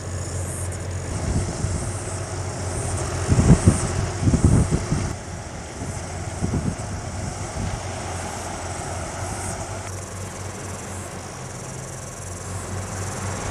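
Car cabin noise while driving: a steady low engine and road hum, with a few heavy low thumps about three and a half to five seconds in.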